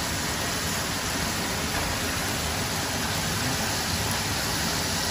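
Flour-coated fish frying in hot oil in a pan: a steady sizzle.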